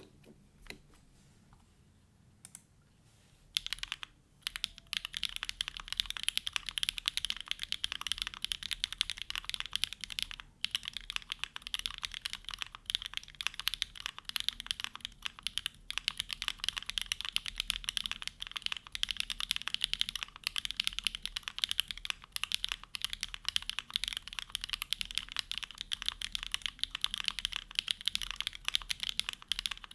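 Rapid, continuous typing on a Neo65 mechanical keyboard with hand-lubed HMX Hyacinth V2U linear switches, a carbon fibre plate and GMK Botanical keycaps. There are only a few separate key clicks at first, then steady fast typing from about three and a half seconds in.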